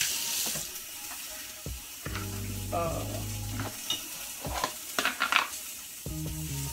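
Sausage patties sizzling in a frying pan, a steady faint hiss, with a few light knocks of bowls being handled. A low steady hum comes in for a second or two midway and again near the end.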